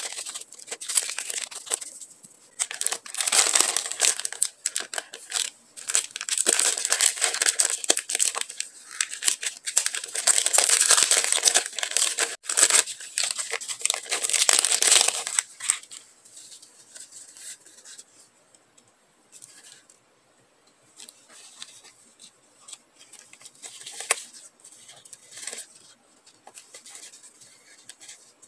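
Clear plastic packaging crinkling and tearing as it is unwrapped from a roll of decorative tape and a bag of die-cut stickers. It is loud and dense for about the first fifteen seconds, then turns to quieter, sparse rustling and light ticks as the stickers are handled.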